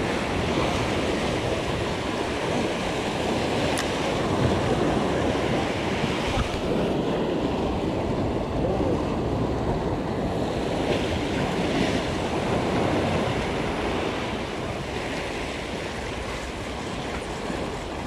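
Sea waves breaking and washing over jetty rocks, swelling and easing, with wind buffeting the microphone.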